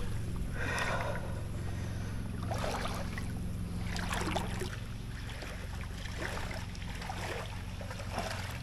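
Bare legs wading through a knee-deep stream: water sloshing and swishing around the shins with each step, irregular surges every second or so over a steady low rumble.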